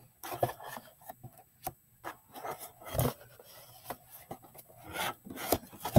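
Paperback books handled and slid into their cardboard box-set case: paper and cardboard rubbing and scraping, with scattered taps and a soft thump about three seconds in.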